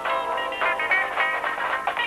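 Music: a quick melody of short, separate notes.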